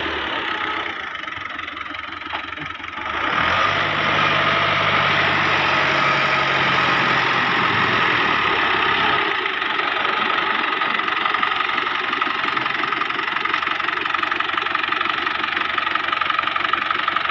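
640 tractor's diesel engine running, getting louder about three seconds in, with a steady high whine over it.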